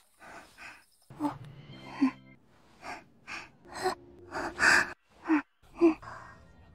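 A young woman's voice making a quick string of short gasps and breathy little vocal sounds, about a dozen of them, each cut off sharply and spliced one after another. Faint background music lies beneath some of them.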